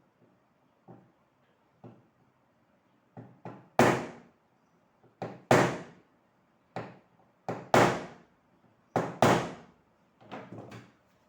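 A series of sharp knocks on the exhaust fan motor as it is taken apart. They start faint, then from about three seconds in come as loud strikes, mostly in pairs, about one pair a second.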